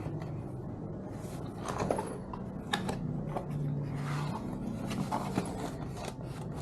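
Heavily wrapped parcel being cut and unwrapped by hand: scissors or a blade cutting, with scraping, rubbing and scattered clicks of packaging.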